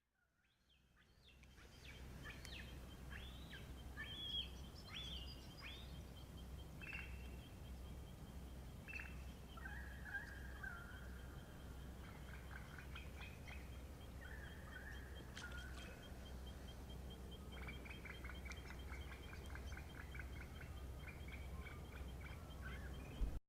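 Several wild birds calling and singing at dawn, short varied whistled and chirping calls overlapping, over a fast, even high trill that keeps going. The sound fades in over the first two seconds.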